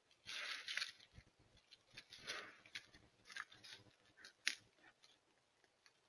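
Rustling and crunching of an American black bear's steps in dry forest litter close to the camera, in uneven bursts, with a sharp snap about four and a half seconds in.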